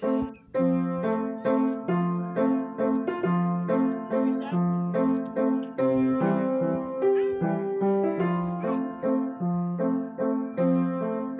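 Piano music: a steady, evenly paced run of struck notes and chords.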